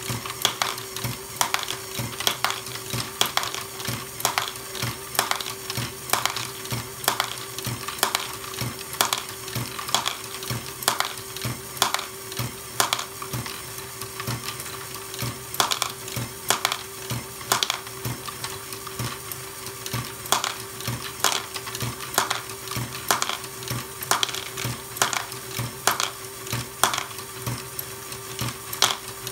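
Lego Technic Great Ball Contraption lift module running: a steady motor hum under rapid, irregular plastic clacking as the fork arms cycle and the plastic balls knock along. A stronger clack comes about once a second.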